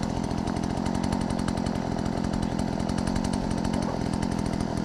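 Chainsaw engine running at a steady speed, cutting into lake ice.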